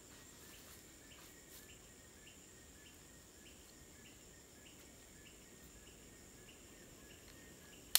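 Tropical forest ambience: a steady high insect drone with a small chirp repeating about three times a second. A single sharp click at the very end.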